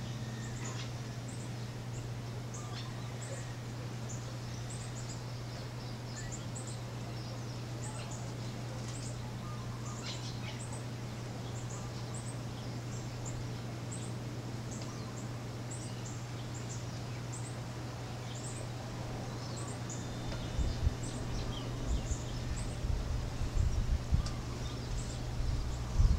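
Birds chirping: short, high calls repeated every second or so over a steady low hum. Irregular low rumbles join in for the last few seconds.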